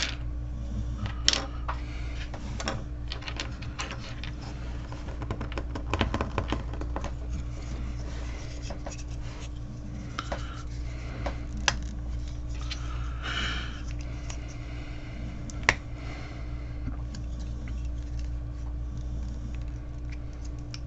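Small plastic model-kit parts being handled and pressed together: scattered clicks and light rustling, with the sharpest snap about sixteen seconds in, over a steady low hum.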